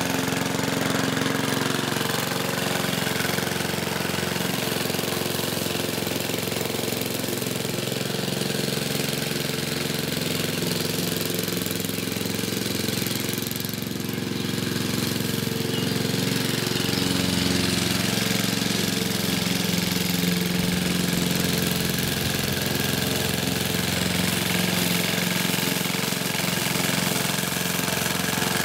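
The 3-horsepower Briggs & Stratton four-stroke engine of a 1960s Goodall rotary push mower runs steadily while cutting grass. It grows fainter about halfway through as the mower moves off, then louder again as it comes back.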